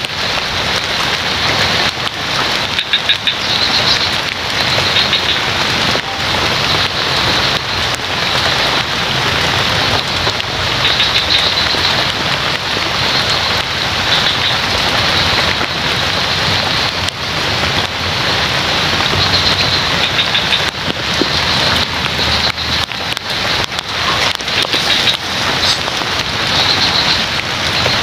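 Steady rain falling on pond water and leaves, with frogs calling over it in a high, pulsing chorus that swells and fades every second or two.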